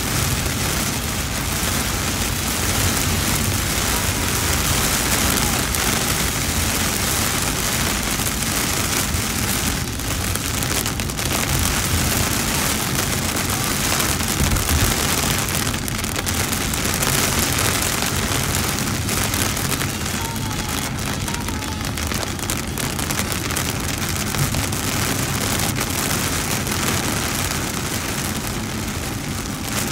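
Heavy cloudburst rain drumming on a car's windshield and roof, heard from inside the cabin, at the peak of the downpour, over a low steady rumble of the car on the highway.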